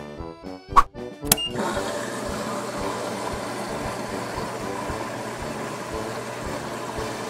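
Washing machine running: a steady whir with a faint, regular low knocking underneath, starting about a second and a half in after a few clicks and a short high beep.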